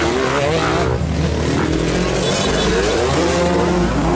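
Several trail motorcycles passing close one after another, their engines revving as they accelerate away, the pitch rising with each pull of the throttle.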